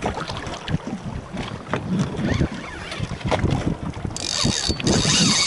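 Wind buffeting the microphone in irregular low gusts on a small boat at sea, with scattered light clicks. About four seconds in, a steady high hiss starts abruptly.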